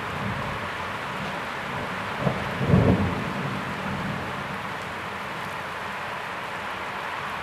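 Steady rain hissing, with a clap of thunder a little over two seconds in that swells into a brief low rumble and fades within about two seconds.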